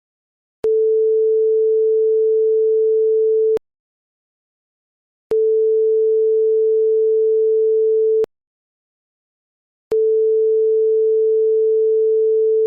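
TV buzzer sound effect: a steady, single-pitched pure tone that sounds three times, each about three seconds long, with silence between.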